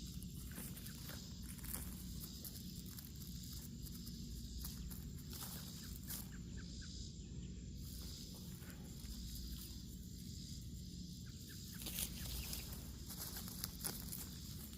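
Outdoor rustling and footsteps over a steady low rumble, with a few sharper clicks near the end.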